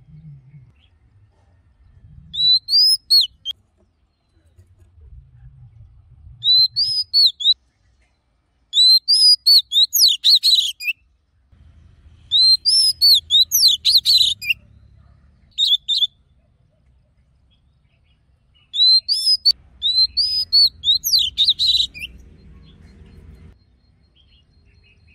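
Oriental magpie-robin singing: six separate phrases of clear, sliding whistled notes, each a second or two long, with pauses of a second or more between them.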